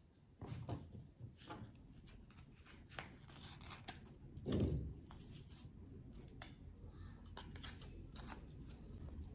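Scissors snipping several times in the second half, with soft rustling of cotton mesh bags handled on a table. A dull thump about halfway through is the loudest sound.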